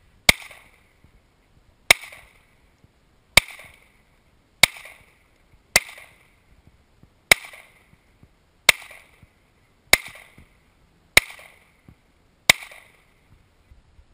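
A handgun is fired ten times in slow, steady succession from the shooter's position, about one shot every one and a half seconds, each sharp crack trailing off briefly.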